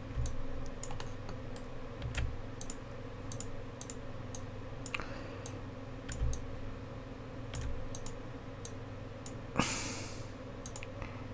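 Computer keyboard and mouse clicks, irregular taps scattered throughout, over a steady low electrical hum; a short hiss of noise about ten seconds in.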